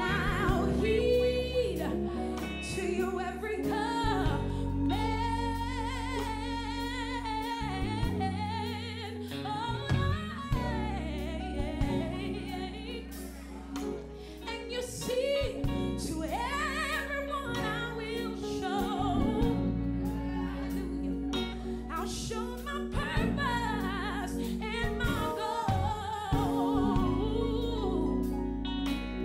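A woman singing a gospel song into a microphone, with long held notes and wavering vocal runs, over instrumental accompaniment with sustained low chords.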